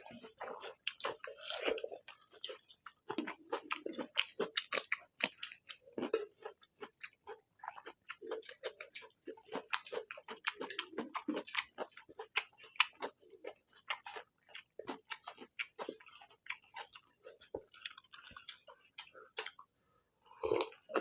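Close-up eating sounds of egg curry and rice: wet chewing and lip-smacking as a dense, irregular run of quick clicks, with a louder burst near the end.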